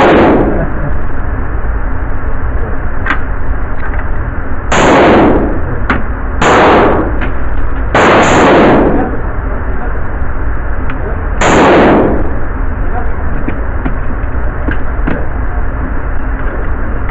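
Six gunshots, each ringing on in a long echo off the walls of an indoor range: one right at the start, then five more spaced irregularly over the next twelve seconds, two of them close together about eight seconds in. Light clicks fall between the shots over a steady background rumble.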